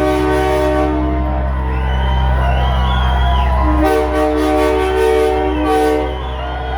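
A multi-note air horn sounding a chord: one long blast ends about a second and a half in, and a second blast sounds from about four to six seconds in. A steady low engine hum runs underneath, with people whooping between and over the blasts.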